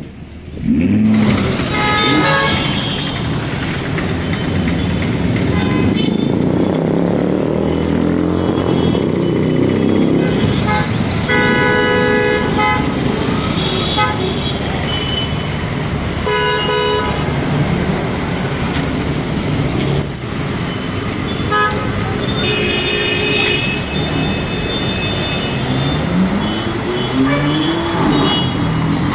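Sports car engines running and revving, their pitch rising and falling, with car horns honking several times, some held for a second or more, over steady traffic noise.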